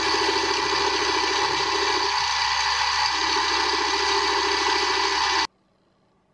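Drill press running with a non-woven abrasive wheel, a brass part held against the wheel to polish it: a steady machine noise that cuts off abruptly about five and a half seconds in.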